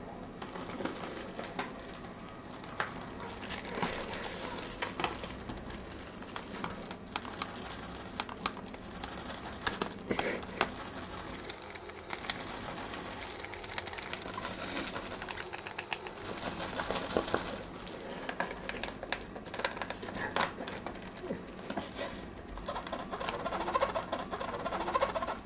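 Fingernails scratching and picking at the cellophane shrink-wrap on a plastic CD jewel case, with irregular clicks and crinkles of the wrap and case. Near the end, teeth gnaw at the wrapped case.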